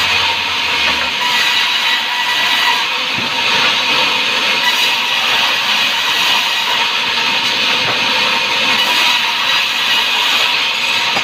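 Sawmill saw running steadily through timber: a continuous rasping cut with a faint steady whine.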